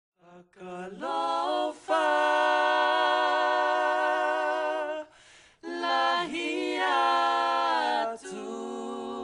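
Unaccompanied singing in long held notes, breaking off briefly about five seconds in, then resuming and growing quieter near the end.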